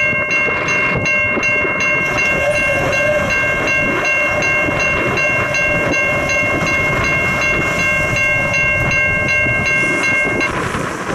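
Diesel freight locomotive's air horn sounding one long, steady blast as the train approaches, several notes held together as a chord. It cuts off abruptly about a second before the end, leaving the rumble of the train and wind.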